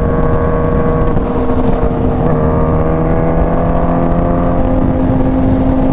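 Kawasaki Ninja H2's supercharged inline-four, fitted with a Competition Werkes exhaust, running at a steady freeway cruise, its note creeping slightly up in pitch after about two seconds. Heard from the rider's seat over road and wind noise.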